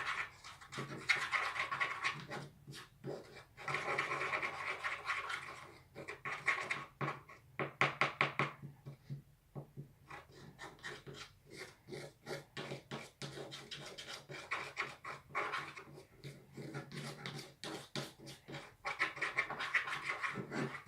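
A spoon stirring a thick mixture of cornstarch and detergent in a container: many quick scraping strokes, with a short pause about nine seconds in.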